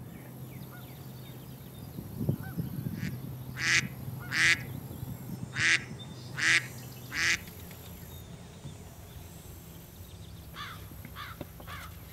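Waterfowl calling: five loud, harsh honks about a second apart, then a string of softer, quicker calls near the end, over a faint low hum.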